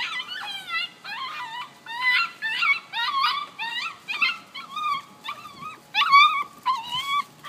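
Labrador puppy whining and yelping over and over, short high cries about two to three a second. It is a pup in distress while being roughed up by its littermates.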